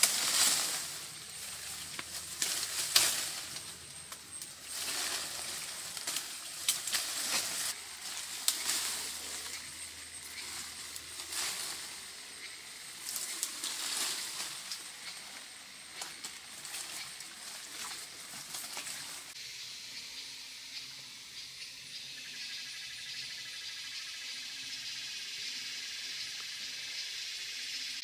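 Leafy branches rustling and crackling in irregular bursts as they are pulled off and gathered by hand, for about the first twenty seconds. After that, a steady high hiss with no further rustling.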